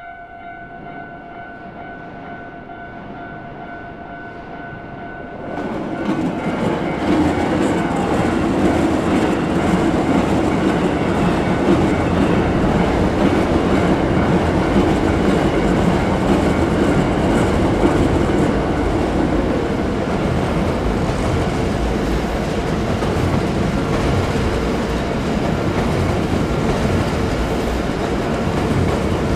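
A Japanese level-crossing warning bell ringing steadily, then a Hankyu electric train running past over the crossing from about six seconds in, loud and steady for the rest.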